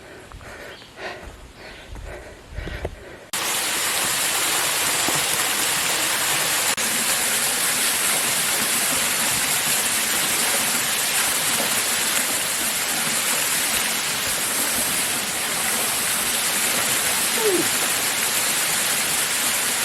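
Waterfall rushing, a loud steady water noise that starts abruptly about three seconds in. Before it there are only quiet trail sounds with a few soft knocks.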